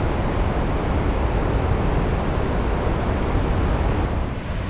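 Steady rush of floodwater pouring through the wide-open floodgates of Bull Shoals Dam and churning down the White River, with wind on the microphone.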